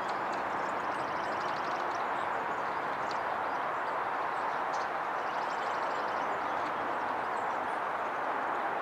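A steady outdoor rushing background noise, with faint, short high chirps and quick runs of ticking calls from small birds scattered over it.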